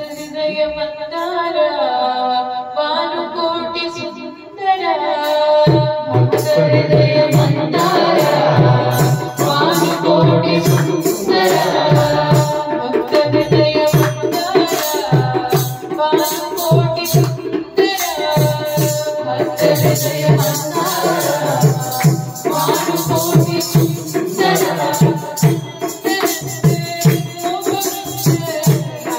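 A devotional bhajan sung through microphones and a PA speaker: a voice sings the melody alone at first, then about five seconds in a two-headed barrel drum (dholak) and a rattling hand percussion come in with a steady beat under the singing.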